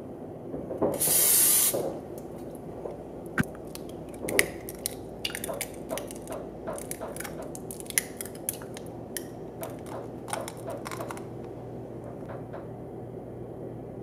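A short hiss of PAM olive-oil aerosol cooking spray about a second in, greasing a ceramic mug. A string of sharp clicks and taps follows as eggs are cracked and opened into the mug.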